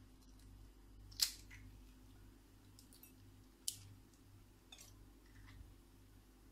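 Eggs being cracked against the edge of a bowl to separate yolks from whites: a few short sharp clicks of shell on the rim, the loudest about a second in and another a couple of seconds later.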